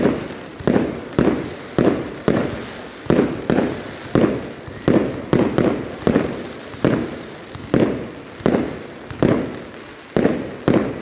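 Fireworks display: a rapid string of firework bursts, roughly two bangs a second, each trailing off in an echo.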